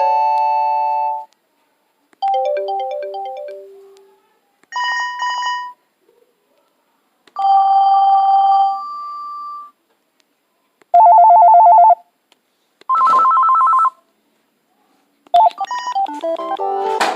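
Panasonic phone playing its ringtones one after another, about seven short electronic ringtones with brief silences between them. They are a held chord, a short falling tune, rapid beeps, a two-tone ring and two warbling trills, with a quick melody starting near the end.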